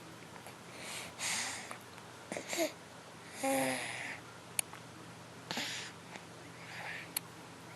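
A baby snoring: about five noisy, wheezy breaths at irregular intervals, one near the middle carrying a short voiced snort. Two brief clicks are also heard.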